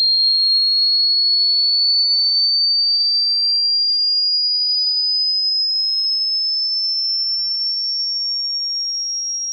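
A single pure, high-pitched electronic tone gliding slowly and steadily upward in pitch, getting slightly quieter toward the end.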